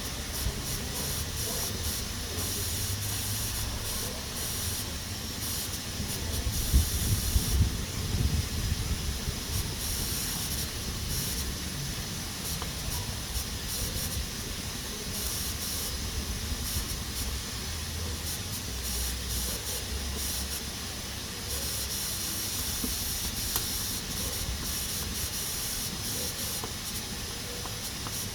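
Pressure cooker hissing steadily as steam vents through its valve, a high hiss with a rapid flutter, the sign that it is up to pressure. About seven seconds in, a stretch of louder low rumbling and knocks comes in under the hiss.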